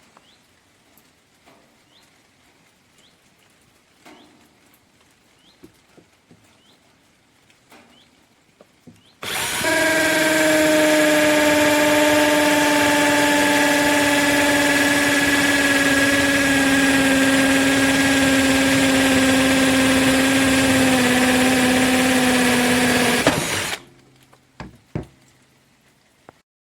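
KUZUPRO 21V cordless drill driver's motor running continuously for about fourteen seconds as a steady whine that sags slightly in pitch, then cutting off suddenly. A few faint clicks come before and after it.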